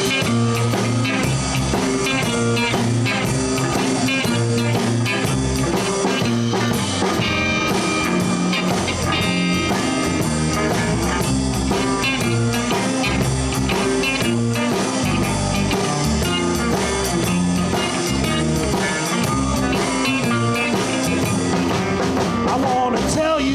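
Live blues band playing an instrumental passage in C: guitars, bass and drum kit keeping a steady beat.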